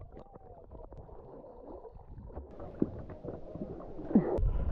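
Muffled underwater gurgling and bubbling, with small ticks from a dog paddling, heard by a camera below the surface. About four seconds in it turns louder and lower as water sloshes against the camera at the surface.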